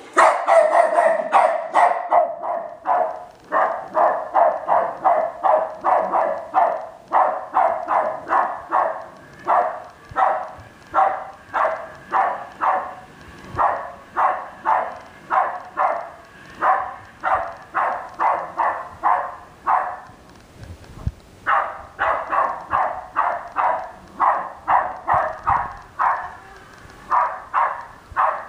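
West Highland white terrier barking over and over, about two barks a second, with a short break about two-thirds of the way through.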